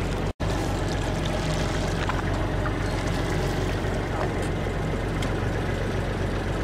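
A boat's engine running steadily, with a brief cut in the sound about a third of a second in.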